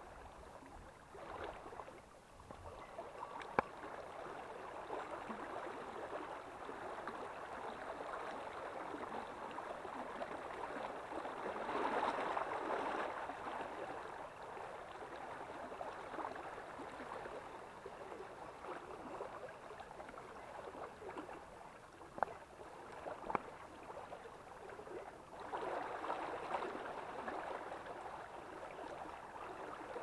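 Shallow forest stream running and sloshing, the water growing louder about twelve seconds in and again near the end, with a few sharp clicks.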